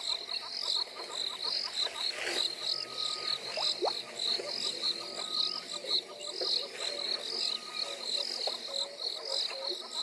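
An insect calling steadily in a high, even pulsing rhythm, about four pulses a second, over faint short bird notes and whistles.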